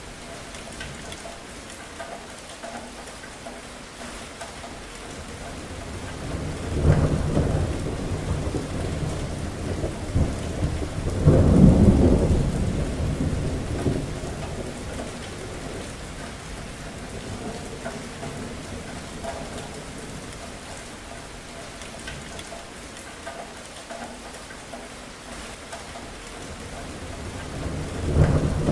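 Steady rain falling, with rolling thunder: a rumble about seven seconds in, a louder, longer one around twelve seconds that slowly fades, and another building near the end.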